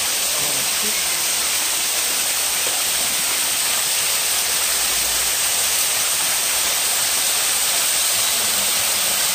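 Small waterfall spilling over rocks into a shallow pool: a steady, even rush of splashing water.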